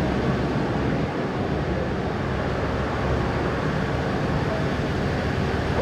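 Dodge Ram pickup's Cummins turbo-diesel engine idling with a steady low rumble.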